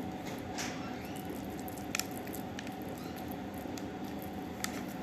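Moist mahshi filling squishing as it is pressed by hand into a hollowed vegetable, with a few soft clicks over a steady low hum.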